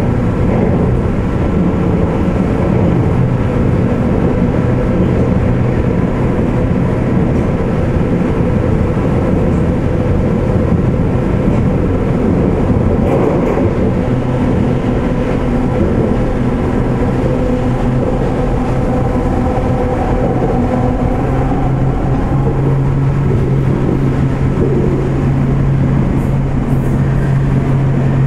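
Sendai Subway Tozai Line linear-motor train running between stations, heard from inside the rear cab. A steady, loud rumble of wheels on rail carries a low electric hum, and the hum grows stronger about twenty seconds in.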